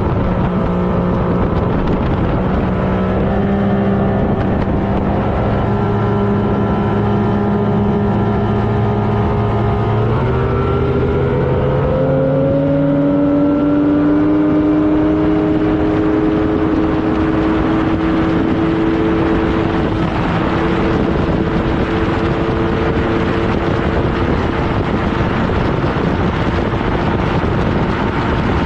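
Outboard motor on a small race boat running hard, its pitch climbing in steps over the first dozen or so seconds as the boat gathers speed, then holding steady at speed, over a loud rush of wind and water.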